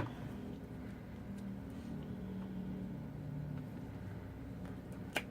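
A low steady hum with faint handling noise, and one sharp tap near the end.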